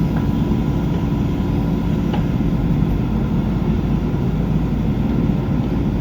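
A JCB backhoe loader's diesel engine running steadily, with a couple of faint knocks, one at the start and one about two seconds in.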